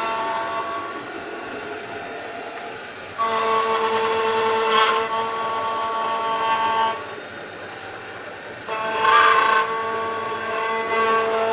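Five-axis CNC carving machine running, its spindle giving a steady multi-tone whine. The sound swells louder twice for a few seconds, with brief rougher flare-ups, as the cutter bites into the workpiece.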